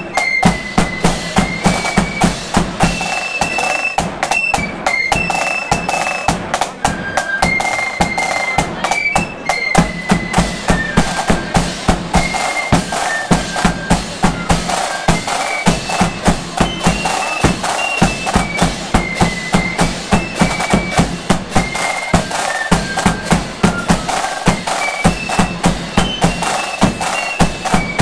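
Marching flute band playing: a high flute melody over a steady beat of snare drums and bass drum, with clashing cymbals.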